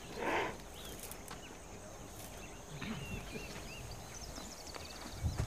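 Quiet open-bush ambience with scattered faint bird chirps and a short trill, a brief breathy burst about a quarter second in, and a few low thuds near the end.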